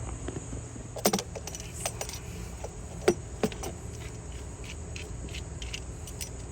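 Metal hand tools clinking and knocking: a wrench being handled and fitted to a stuck oil filler cap. There are a few sharp clinks about one and three seconds in, with lighter ticks between.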